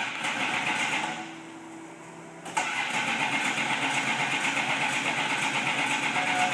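426 Hemi V8 of a 1968 Plymouth Barracuda factory drag car firing on a start attempt: a loud burst that dies after about a second, then the engine fires again about two and a half seconds in and runs loud and steady.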